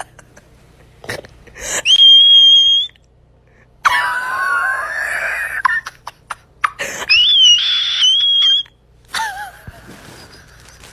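A person's loud, high-pitched squeals and cries as a cat bites their arm. There is a long steady shriek about two seconds in, a wavering wail from about four to five and a half seconds, another shriek at around seven to eight and a half seconds, and a short cry about nine seconds in.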